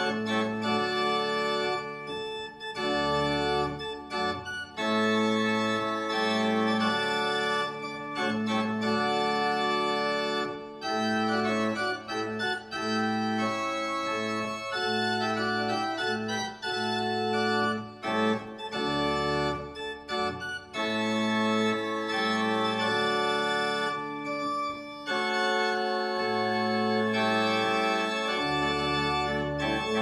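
Small pipe organ playing a slow piece in sustained chords over a low bass line, the chords changing every second or two, with brief breaks between phrases.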